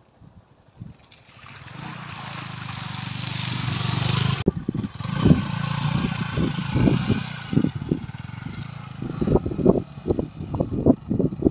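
Yamaha MT-15's single-cylinder engine running and growing louder as the bike approaches. After a sudden cut about four and a half seconds in, it surges unevenly with irregular thumps as the bike struggles for grip climbing a slippery muddy slope.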